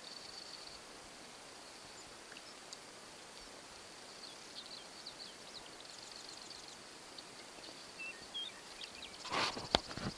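Quiet outdoor ambience with a faint high trill and short high chirps of small birds, and a brief burst of noise about nine seconds in.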